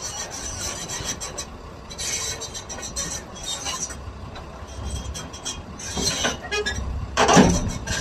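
Excavator working: the machine runs with irregular scraping, grinding and squealing of metal, and a louder burst of noise near the end.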